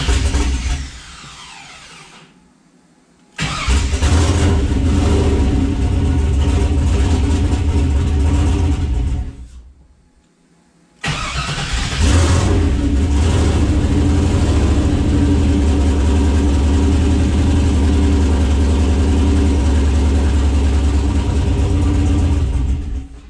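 A swapped-in 6.0-litre V8 in a CUCV truck, heard from the cab, repeatedly starting and stalling. It fades out about two seconds in, restarts about three seconds in and dies again near ten seconds, then restarts at about eleven seconds and keeps running to the end. It has a miss and doesn't want to idle.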